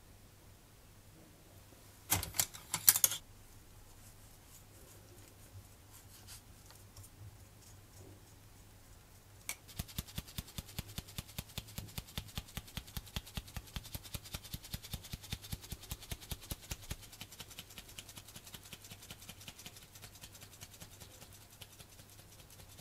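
Scissor-handled mesh strainer being shaken to sift flocking fibres onto a glued plastic part: rapid, evenly spaced metallic ticking that starts about ten seconds in and fades in the last few seconds. About two seconds in there is a brief loud clatter, as the fibres are tipped from a glass jar into the strainer.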